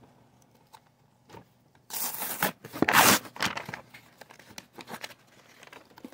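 Glued cardboard flap of a trading-card collection box being pried and torn open: two loud tearing rips about two and three seconds in, then smaller crinkles and scrapes of the cardboard.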